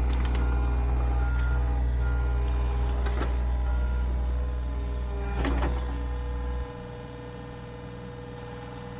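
John Deere 35G mini excavator's diesel engine running hard with a steady hydraulic whine as the boom, bucket and tracks pull the machine out of the mud, with a few sharp knocks of the bucket and tracks. About two-thirds of the way through, the engine's low hum drops suddenly to a quieter note.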